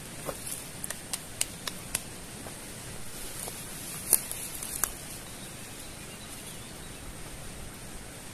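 Rustling of a hammock tarp and its gear being handled, with a scattering of light sharp clicks, loudest about four seconds in, over a steady hiss.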